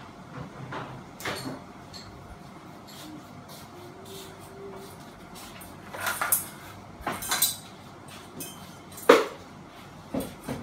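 Scattered clicks, clinks and knocks of hands working on a ceiling fan's motor housing and fittings, with a cluster of them about six and seven seconds in and a sharper knock about nine seconds in.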